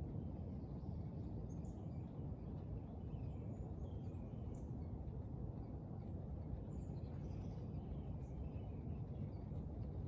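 Steady low outdoor background rumble with faint, scattered short chirps of small songbirds calling out of sight.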